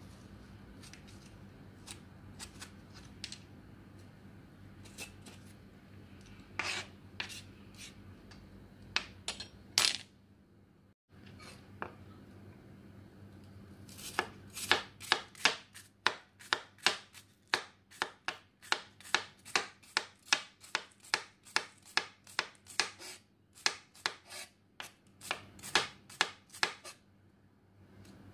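A halved bitter melon being scraped out with a spoon, soft scraping with scattered clicks. After a short gap, a chef's knife slices the bitter melon on a cutting board in steady chops, about two a second, pausing briefly near the end.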